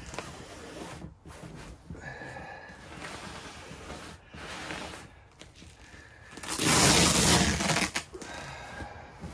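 Tent fabric rustling as hands press and smooth a glued-on stove jack against the tent wall. Near the end comes a louder rustle of about a second and a half as the stove jack's fabric rain flap is lifted and handled.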